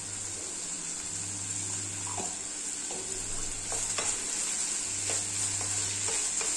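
Chopped mixed vegetables frying in oil in a kadai with a steady sizzle, while a wooden spatula stirs them. The spatula scrapes and taps against the pan a few times in the second half.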